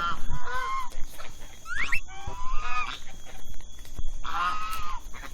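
Geese honking: about five calls in a row with short gaps between them.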